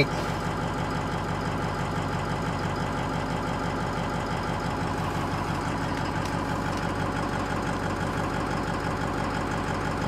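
Ford 6.0 Powerstroke V8 turbo-diesel idling steadily, heard from inside the truck's cab.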